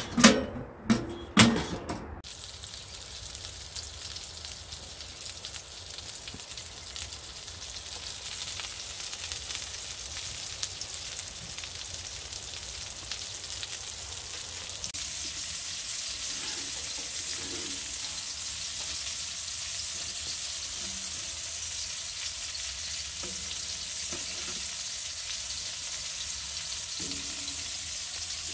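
A few sharp metal clanks as the door of a Winnerwell stove-pipe oven is shut and latched, then meat patties sizzling steadily in a nonstick frying pan on a wood stove, the sizzle growing a little louder over the first several seconds.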